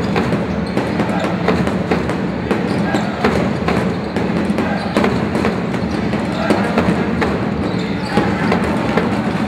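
Live basketball game sound in a sports hall: the ball bouncing on the hardwood court many times in an irregular pattern, over a mix of voices from players and spectators.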